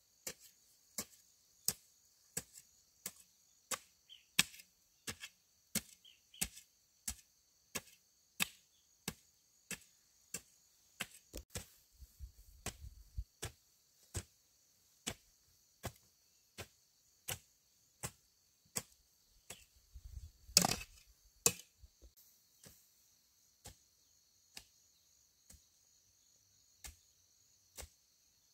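Sharp, evenly spaced strikes, about three every two seconds, with a louder cluster of blows about two-thirds of the way through. A steady high insect chirring runs behind them.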